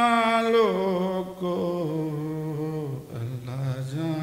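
Unaccompanied male voice singing a Punjabi lament: a long held note that breaks off under a second in, then a lower hummed note sliding slowly down in pitch, with a brief dip near the end before the next phrase begins.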